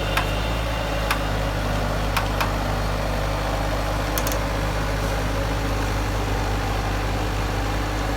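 Bobcat skid steer's engine running at a steady speed, with a few light clicks.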